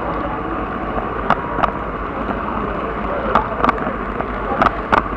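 Camera-carrying N scale model train car rolling along the track, heard from on board: a steady rolling rumble with sharp clicks in pairs, three times, as the wheels pass over rail joints.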